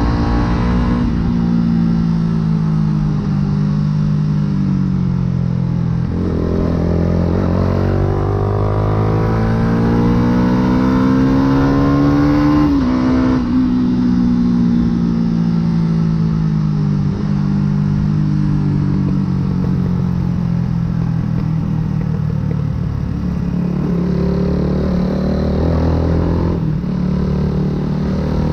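Yamaha YZF-R125's single-cylinder four-stroke engine through a full aftermarket exhaust, under way: the revs sink for a few seconds, then climb for about six seconds, drop abruptly a little before halfway, sink slowly for about ten seconds and climb again near the end.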